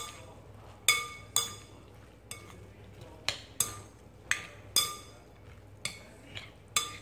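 A metal spoon clinks against a glass mixing bowl while rice noodle salad is stirred and tossed. There are about a dozen irregular, short ringing clinks.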